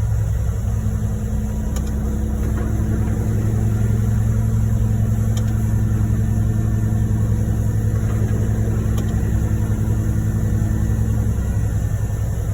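Heavy diesel truck engine running steadily at a concrete pump job; the engine note steps up slightly about half a second in and drops back near the end.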